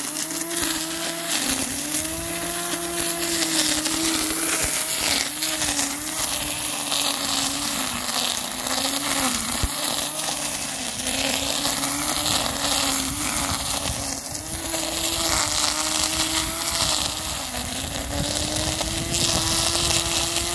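Parkside PRT 550 A3 electric string trimmer running and cutting grass: its 550 W motor whines steadily, the pitch dipping briefly again and again as the spinning line bites into tall grass, over a hiss of line striking the grass.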